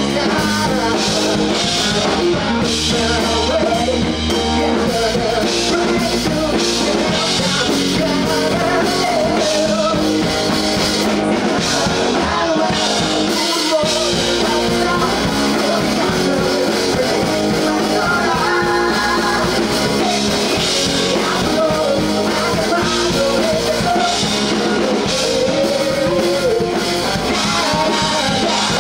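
Rock band playing live, with drums, electric guitar and a singer, loud and steady.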